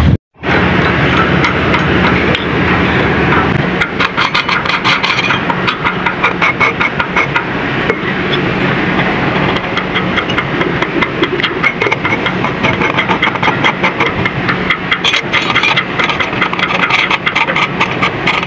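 An engine running steadily with a fast, dense clatter.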